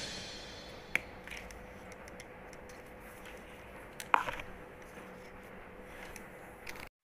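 Hard plastic clicks as a Hot Wheels launcher and orange track piece are handled and fitted together: one sharp click about a second in, and a louder click with a few small rattles just after four seconds. A faint steady hum lies underneath.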